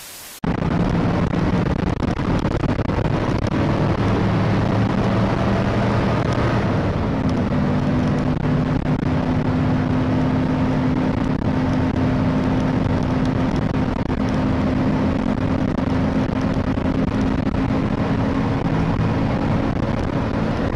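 A split second of TV static, then a vehicle's engine running steadily with road noise, heard from inside the vehicle while it drives. The engine hum steps up a little in pitch about seven seconds in and then holds.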